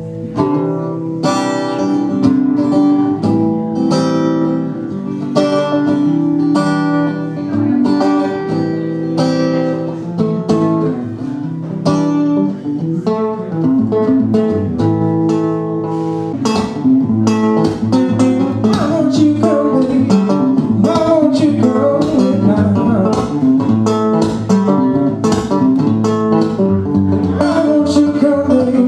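Blues guitar playing: picked notes and chords ring out in a steady rhythm, and the playing grows busier about halfway through.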